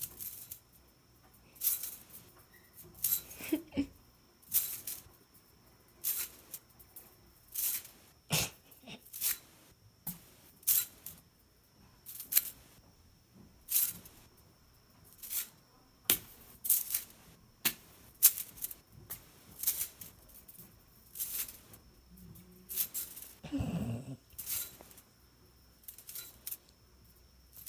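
Light metallic clinks, short and sharp, repeating roughly once every second or so, with a duller, lower sound a little before the end.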